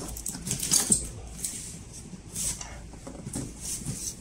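Cardboard monitor box being handled and laid down flat: hands sliding and scraping over the cardboard and its clear packing tape, in irregular rustles with a few low bumps, loudest about a second in.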